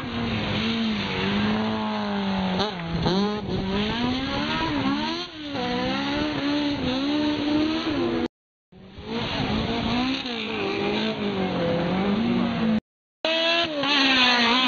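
Rally car engines at full throttle as cars pass, the engine note climbing and dropping again and again. The sound cuts out to silence briefly twice, about 8 and 13 seconds in.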